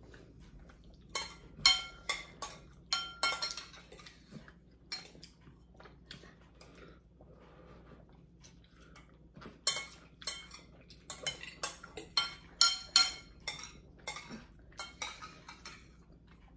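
Metal cutlery clinking and scraping against ceramic soup bowls while eating, in quick runs of sharp clinks with a short ring. There are two busy runs, with a quieter stretch in between.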